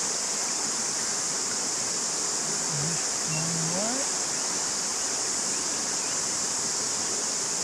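Cicadas singing in a steady high chorus over the constant rush of river water.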